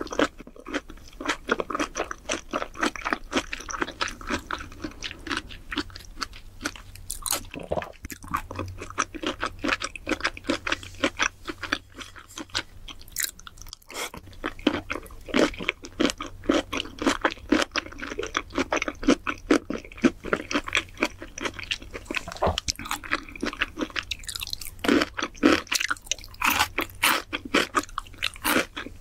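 Close-miked chewing of raw shrimp: a dense run of wet smacks and crunchy clicks, several a second, some louder than others.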